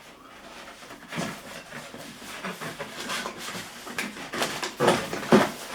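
Cardboard toy packaging being handled and pulled at while being opened: irregular scraping, crinkling and knocking of the box, growing busier in the second half.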